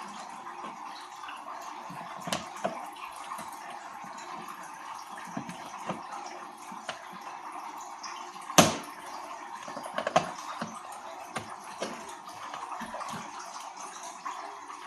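Plastic clicks and knocks from an ADT alarm keypad panel being handled on its wall mount, with one sharp click about halfway through, over a steady background hiss.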